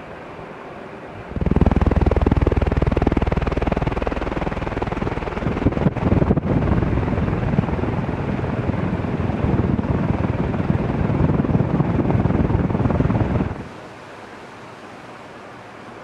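Crompton Greaves High Breeze 1200 mm four-metal-blade ceiling fan running at speed with a steady rush of moving air. About a second and a half in, the sound jumps to a much louder buffeting rush of the fan's downdraft on the microphone right under the fan. Near the end it drops abruptly back to the softer steady whoosh.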